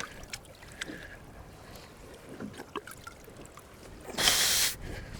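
Small knocks and clicks of handling in a fishing boat, then a short loud rush of noise about four seconds in.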